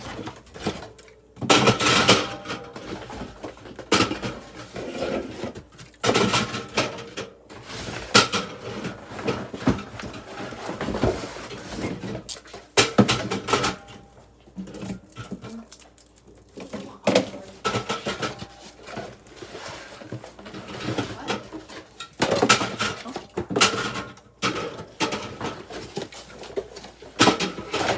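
Aluminium drink cans clinking and knocking together as they are taken out and stacked into a mini fridge, in irregular clattering bursts.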